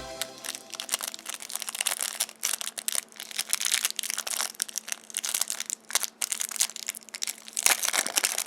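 Foil wrapper of a chocolate surprise egg being crinkled and peeled off by hand, giving dense, irregular crackling and crunching.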